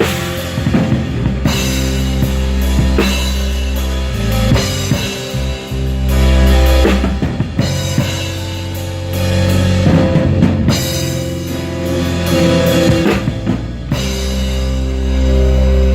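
Live band of guitar, bass guitar and drum kit playing a steady rock-style beat, with sustained bass notes and chords under regular drum hits.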